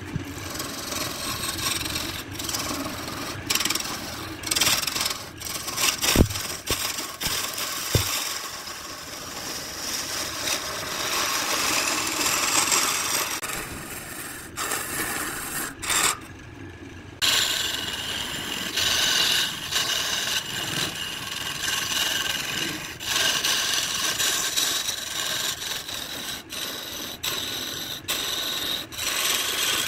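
Lathe gouge cutting a spinning blank of colored pencils set in epoxy: a steady rasping scrape as shavings spray off, with two sharp knocks about six and eight seconds in and a brief break about sixteen seconds in.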